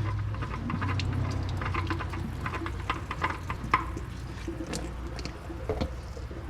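Used motor oil draining and dripping into a catch can from a loosened oil filter, over a steady low hum. The drips are thick for about four seconds, then thin out.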